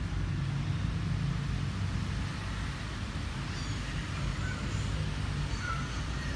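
Steady low background rumble, with two faint short chirps in the second half.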